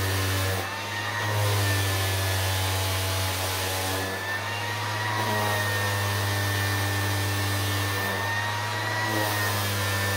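Corded Milwaukee random orbital palm sander running at its lowest speed setting, pressed onto a bamboo mat over wet wool to agitate it for felting. It gives a steady low hum with a higher whine that wavers slightly in pitch.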